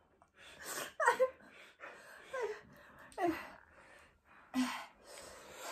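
A person's sharp, breathy gasps about a second apart, several with a short falling moan: hissing and whimpering at a mouth burning from spicy ramen.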